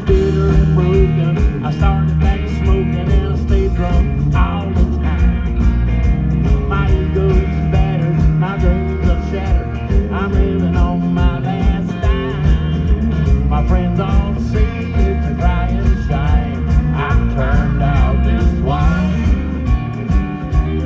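Live country-rock band playing with a steady beat: electric guitar lines over bass and drums.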